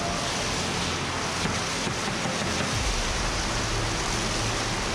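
Steady rushing hiss on the camera microphone, with a few faint knocks.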